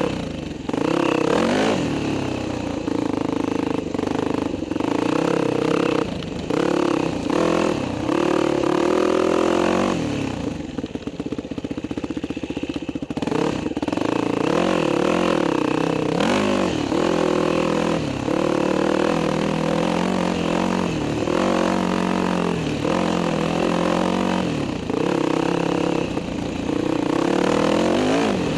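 The dirt bike's engine, heard from on board, revving and easing off again and again with the throttle, its pitch rising and falling. It drops to a quieter, lower run for about three seconds in the middle before picking up again.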